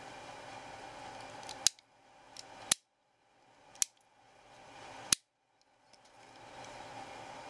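Four sharp clicks, about a second apart, from a WE G39 (G36) gas blowback airsoft rifle's trigger assembly being worked by hand.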